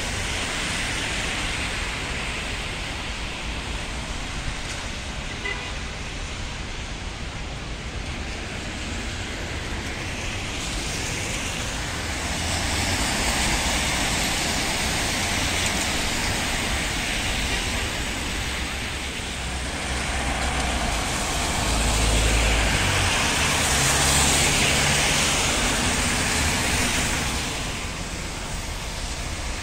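Street traffic passing on a wet road: a steady hiss of tyres and engines that swells louder twice, in the middle and again near the end as vehicles go by.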